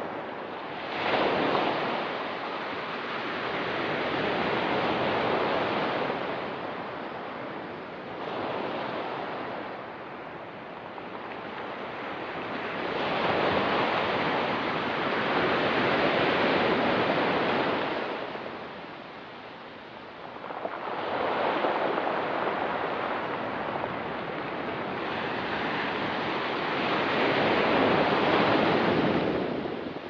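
Ocean waves breaking and washing up a rocky beach, the surf swelling and falling away in slow surges every few seconds.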